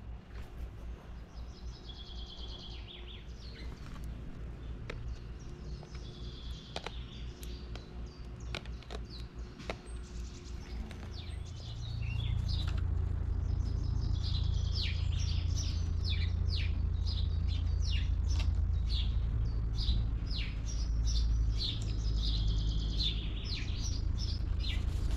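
Birds chirping and twittering in many short, high calls that come thickest in the second half. A steady low rumble underneath grows louder about halfway through.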